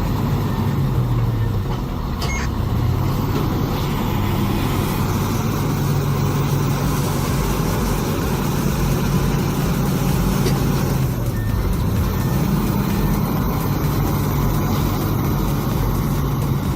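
Heavy vehicle's diesel engine running under load, its pitch slowly rising and falling as it revs up and down.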